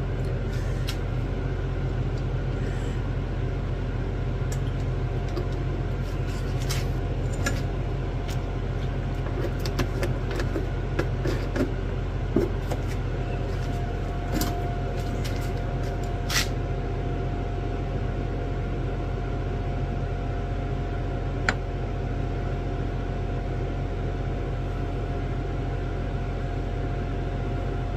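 Steady low mechanical hum of a running machine, with a faint steady whine above it, and a few light clicks and taps here and there.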